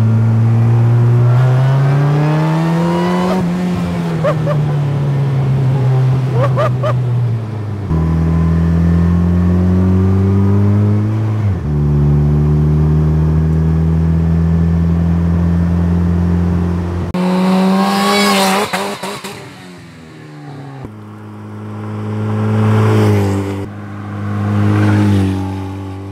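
Supercharged four-cylinder engine of a DF Goblin kit car (Cobalt SS Ecotec) accelerating through the gears, its revs climbing and dropping at each shift. About two-thirds of the way in, the sound changes to the car heard from the roadside, swelling loud twice as it drives by.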